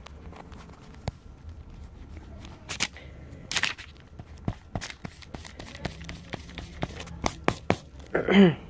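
Pencil drawing on paper: scattered short scratches, taps and handling knocks. Near the end comes one short vocal sound that falls in pitch.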